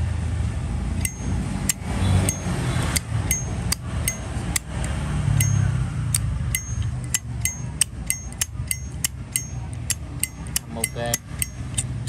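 Thick-cased Zippo Armor lighter's hinged lid flicked open and snapped shut over and over: sharp metallic clicks, many with a short bright ring. The clicks come about every half second at first and quicken to about three a second in the second half.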